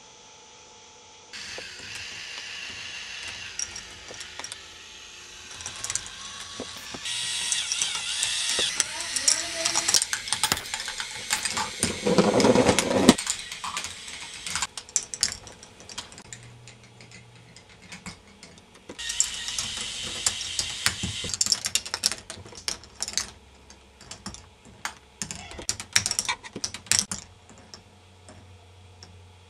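K'nex ball machine running: plastic balls rolling along plastic tracks in stretches of rushing, rattling noise, with many sharp clicks and clacks from the machine's mechanisms, loudest near the middle.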